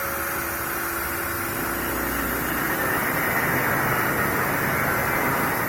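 Electric angle grinder running steadily: a steady whine with two faint held tones over a broad hiss.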